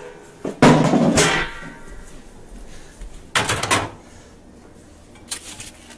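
A loud thump and rustle of handling about half a second in, then a microwave oven's door pulled open with a clunk of its latch about three seconds in, followed by lighter knocks near the end.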